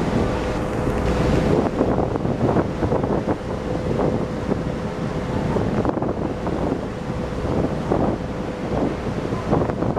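Wind buffeting the microphone in gusts over the steady low hum and rumble of a moored fishing boat's engine.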